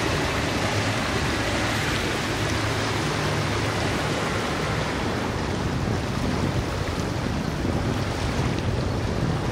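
Motor yacht running at speed: a steady rush of water from the hull and churning wake, with a low engine drone underneath.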